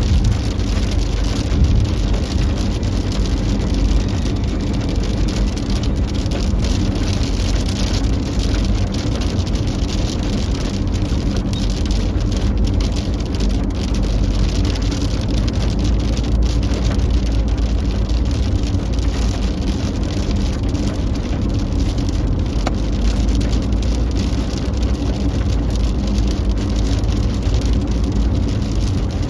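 Heavy downpour beating steadily on a moving car, over the steady drone of road and engine noise.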